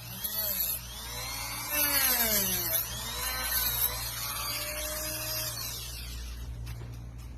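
Small high-speed rotary tool running on a circuit board, its whine rising and falling in pitch over the first few seconds and then steadier.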